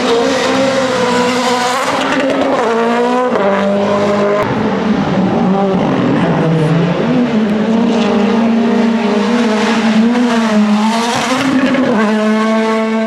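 Rally1 car's turbocharged engine pulling hard, its pitch climbing and then dropping with each gear shift and lift, several times over.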